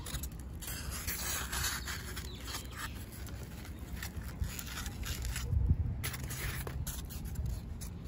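Dry desert rose roots and pieces of styrofoam scraping and rubbing as hands push the foam in between the roots, with scattered small clicks.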